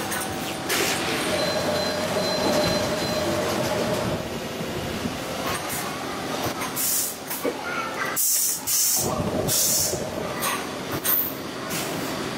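Motorcycle tyre-building drum machine running with a steady mechanical clatter and a brief tone near the start, and three short hisses in the second half.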